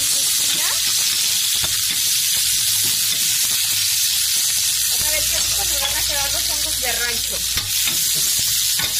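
Sliced onions sizzling steadily as they fry in oil in a stainless steel pan. A spoon stirs them, with a few light knocks against the pan.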